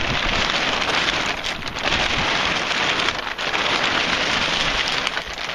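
Loud, crackly rustling of a fabric boat cover dragging against the microphone, stopping abruptly at the end.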